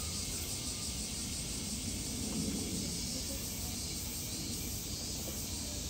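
Steady outdoor ambience: an even high hiss over a low rumble, with no distinct event.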